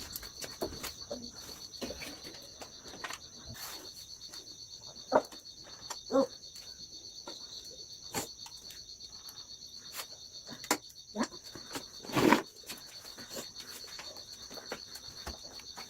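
Steady insect chorus, a high pulsing drone, with a few scattered knocks and taps, the loudest about twelve seconds in.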